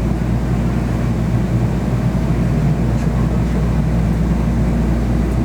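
Steady low hum of an N700-series Shinkansen train standing at the station, its on-board equipment running before departure.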